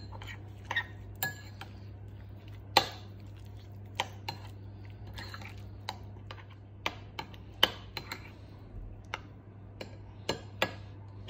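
Metal spoon stirring and mashing a thick yogurt-and-mint chutney in a ceramic bowl, with irregular clinks and taps as the spoon strikes the sides of the bowl.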